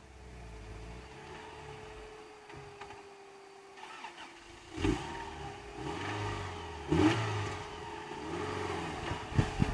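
Subaru EJ22 2.2-litre flat-four engine idling, then revved in two sharp blips about five and seven seconds in, getting louder again near the end.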